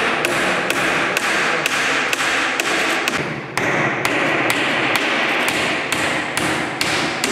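Hammer blows on wooden planks, about three sharp strikes a second in a steady rhythm over a constant hiss, with a short break about three and a half seconds in before the hammering resumes.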